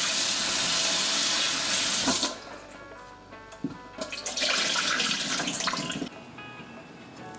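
Kitchen tap running cold water into a stainless steel bowl of scalded tomatoes, shut off about two seconds in. After a single knock, water is poured from the bowl into the steel sink for a couple of seconds.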